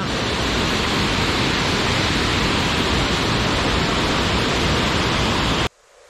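Loud, steady rush of a small waterfall and river swollen with muddy floodwater after heavy rain, tumbling in whitewater over rocks and ledges. It cuts off suddenly near the end.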